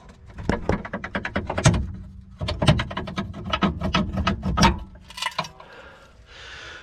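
Ratchet wrench clicking rapidly in two runs of quick strokes, with a few last clicks near the end, as a strut bolt is worked loose.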